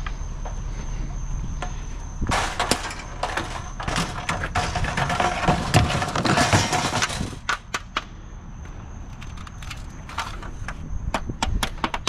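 Aluminum extrusion scrap being handled and moved: scattered knocks and clanks, with a louder spell of rattling and scraping in the middle, then lighter clicks.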